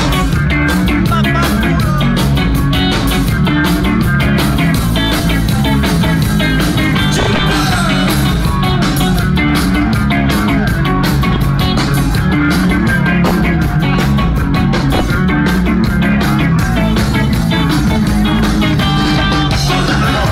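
Punk rock band playing live, loud and continuous, with electric guitars, bass and drums.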